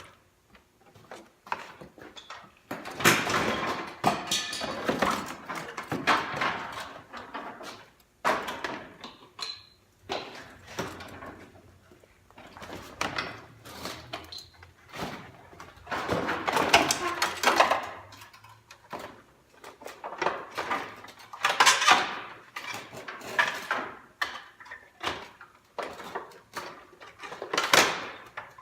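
Hand work on a car's front bumper cover: irregular knocks, clicks and clatter of tools and plastic trim, with longer stretches of scraping and rattling, as the bumper is taken apart.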